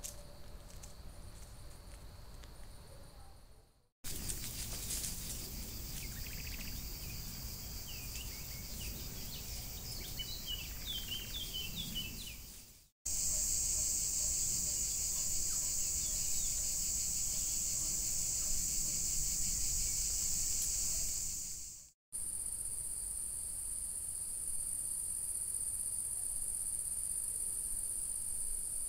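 Outdoor ambience from trail-camera recordings: crickets chirping in a steady high trill, with a run of short high chirps about ten seconds in. The sound cuts out abruptly three times as the clips change.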